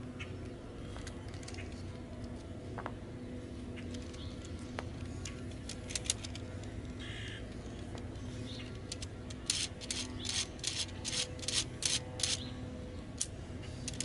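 Plastic Lego Technic gearbox parts clicking as the gearbox is handled and shifted through its gears. A few scattered clicks come first, then a quick run of sharp clicks, about three a second, late on, over a steady low hum.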